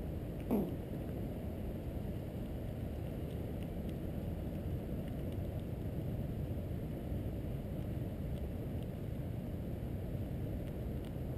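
Steady low outdoor background rumble, with one short falling tone about half a second in.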